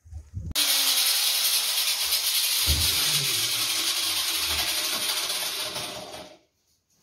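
Power tool cutting into a plaster wall to make a chase for new wiring: a loud, hissing grind that starts abruptly about half a second in and dies away about a second before the end.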